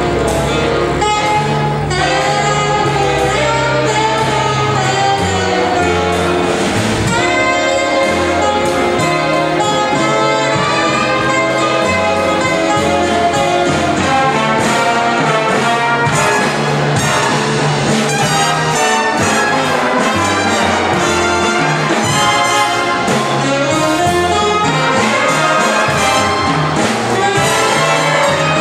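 Live big band playing jazz: saxophone and trumpets in full ensemble over a bass line that steps from note to note.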